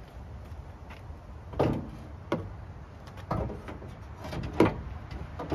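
An off-road fender panel knocking against the Jeep Wrangler's body as it is held up to the front wheel opening for a test fit: four separate knocks, the loudest near the end.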